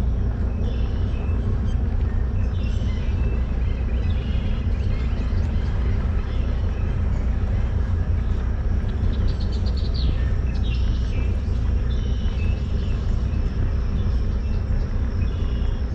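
A bass boat's outboard motor running steadily at low speed with a low, even hum.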